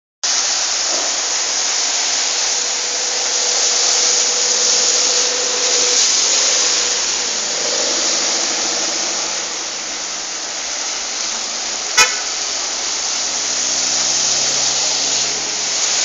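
Traffic passing on a rain-soaked road: a steady hiss of tyres on wet pavement, with a faint car horn held for a couple of seconds about four seconds in and a sharp click about twelve seconds in. A low engine hum joins in the last few seconds as a pickup pulls out.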